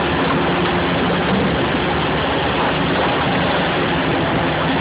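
Large mining excavator's diesel engine running steadily.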